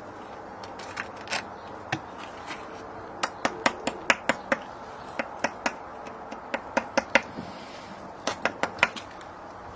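Small trowel clicking and tapping against brick and mortar in quick, irregular runs of sharp taps.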